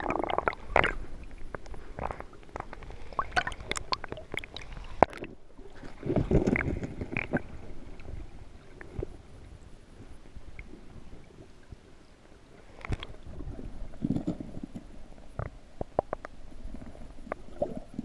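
Surf water churning as heard by a submerged camera: muffled rumbling swells and gurgles with scattered sharp clicks, growing louder at times, as around six seconds in and fourteen seconds in.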